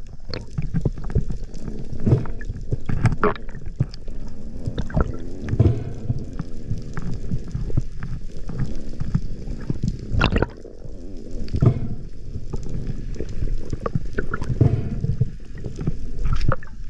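Underwater water noise: a steady low rumble and gurgle of water moving against the camera, with scattered clicks and knocks and one sharper knock about ten seconds in.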